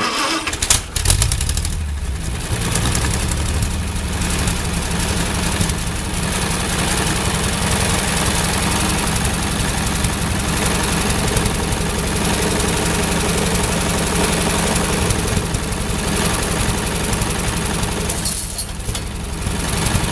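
Ford 8N tractor's four-cylinder flathead petrol engine starting right at the beginning and then running steadily while the tractor's hydraulic lift raises the hoist boom and a log.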